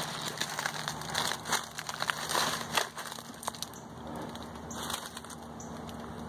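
Crackling and crunching of dry brush and dead palm fronds as someone pushes through thick scrub on foot, with a dense run of snaps in the first half that thins out after about three and a half seconds.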